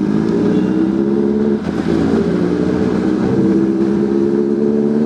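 Motorcycle engine running while riding, its pitch climbing slowly and dipping briefly about a second and a half in, as the throttle eases off or a gear changes.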